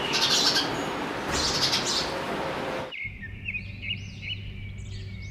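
Small birds chirping: first a dense, noisy chatter, then about three seconds in the sound changes abruptly to clear, separate chirps over a steady low hum.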